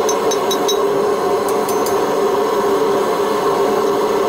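A forge heating an iron bar runs with a steady, unbroken roar. A few light metallic clinks come near the start and again about a second and a half in.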